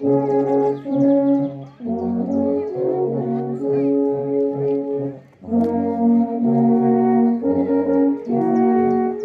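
Alphorn ensemble playing a slow piece in harmony: several long held notes sounding together, changing chord every second or so, with a short break about two seconds in and a brief pause between phrases a little past halfway.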